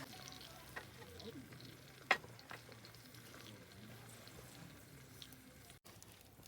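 Faint camp cooking: food sizzling in a pan with small utensil clicks, and one sharp click about two seconds in.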